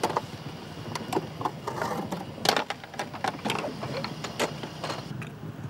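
Scattered clicks, knocks and rustling from hands and gear being handled around a stretcher, over a low steady hum. The loudest knock comes about halfway through.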